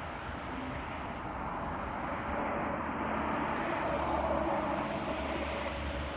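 A distant passing vehicle: steady engine noise that swells gradually, is loudest about four seconds in, then fades.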